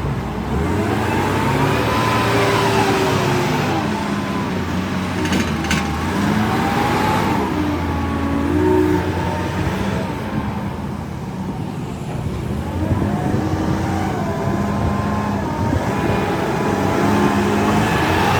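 A motor running steadily with its pitch rising and falling in slow sweeps every few seconds, as a construction vehicle's engine or machinery does under changing load.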